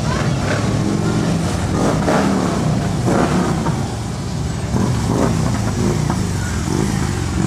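A column of touring motorcycles and trikes riding past together, many engines running at once in a steady low rumble with a few brief swells.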